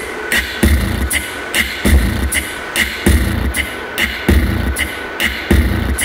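Live band music: a singer beatboxing a steady beat into the microphone, low kicks with sharp clicks in between at about three strikes a second, over an electric bass guitar.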